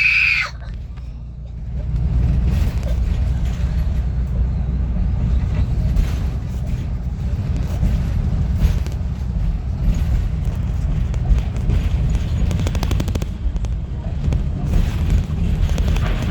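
Steady low rumble of a moving school bus heard from inside the cabin, engine and road noise, with faint scattered knocks and rattles.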